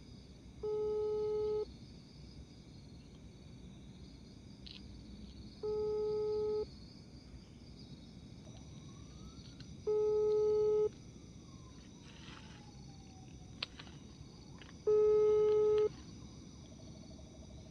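Telephone ringback tone of an outgoing call that has not yet been answered: four one-second beeps at one low pitch, repeating about every four to five seconds.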